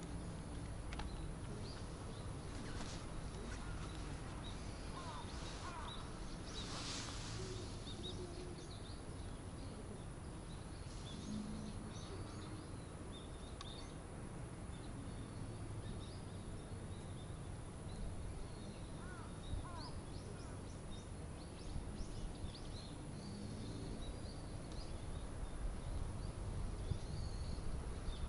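Scattered short bird chirps over a steady low rumble of outdoor background noise.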